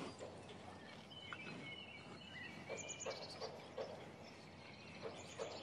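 Faint outdoor ambience with small birds chirping on and off and a few short soft calls, over a low steady hiss.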